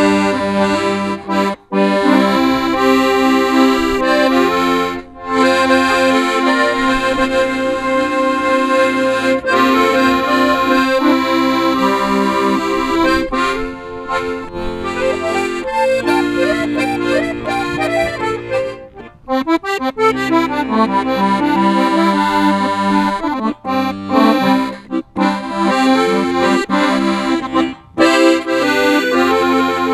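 Bugari piano accordion played solo: sustained chords under a right-hand melody on the keyboard, with a few brief breaks in the sound.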